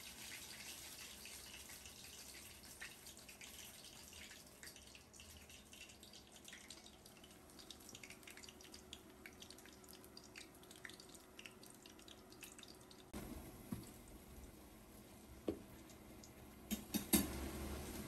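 Batter-coated cauliflower florets frying in hot oil, a faint sizzle with scattered small crackles and pops. Near the end, a few sharp knocks, the loudest about a second before the end.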